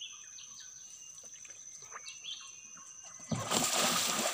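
Water splashing hard, starting suddenly about three seconds in, as a large catfish thrashes in a net at the surface. Before it, only short high chirps over a steady high whine.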